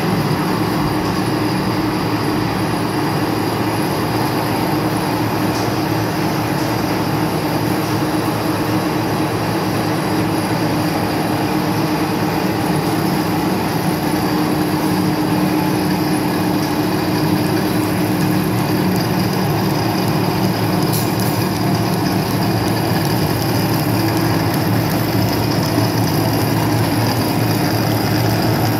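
Wet wire-drawing machine running: a steady, loud mechanical din with a constant low hum as its capstans turn and pull steel wire through the dies in a soapy lubricant bath.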